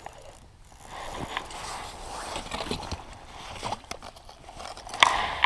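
Rustling and scraping of gear and the camera being handled on the ice beside a fishing hole, with a few knocks and one sudden loud sharp sound about five seconds in.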